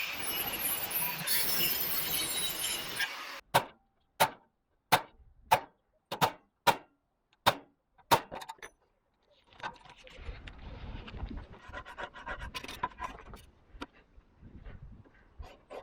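A steady rushing noise cuts off about three seconds in. It is followed by about nine sharp, ringing metallic knocks, one or two a second, like a hammer striking sheet steel. After them come quieter clinks and rattles of metal pieces being handled.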